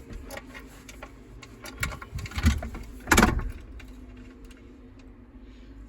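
Steady low machine hum with scattered clicks and metal knocks, the loudest a sharp clank about three seconds in.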